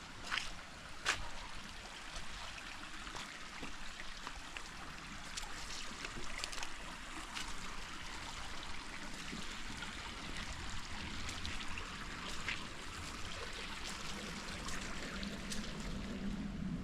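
Creek water flowing and trickling steadily over rocks, with a few scattered sharp ticks.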